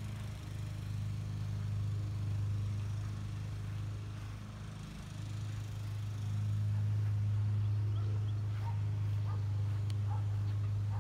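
A steady low mechanical hum that grows louder about six seconds in, with a few faint short chirps in the second half.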